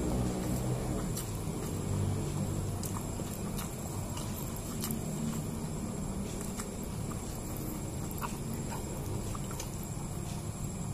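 Close-miked eating sounds: chewing of a mouthful of rice and soft squishing as fingers pinch and mix rice on a plate, with scattered small clicks.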